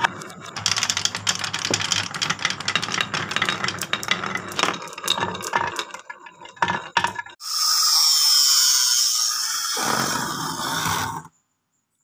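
Marbles and small balls rolling and clacking along a handmade wooden marble run: a rapid rattle of clicks on wood that thins out to a few scattered knocks. Then a steady rushing noise for about four seconds that cuts off suddenly.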